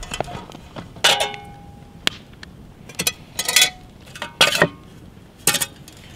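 Metal camp cookware clanking: a pot lifted off and set down and the metal windscreen and pot stand of a Trangia-type alcohol stove handled. There are about six knocks, several with a short metallic ring.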